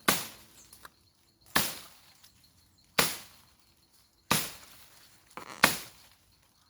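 Small wood being chopped by hand with a bladed tool: five sharp strokes about a second and a half apart, each dying away quickly.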